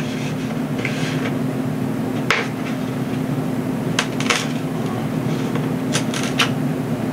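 Scattered short clicks and crackles as a balsa-sheeted foam wing is handled and flexed at its glue joint, over a steady low hum.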